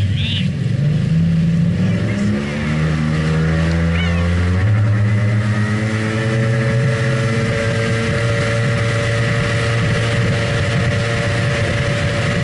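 Yamaha XLT1200 jet ski's three-cylinder two-stroke engine running at speed under load. Its pitch climbs over the first few seconds and then holds at a steady high note, over the hiss of water spray.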